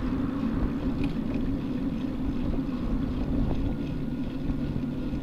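Steady wind and road rumble picked up by a bicycle-mounted camera while riding, with a constant low hum underneath.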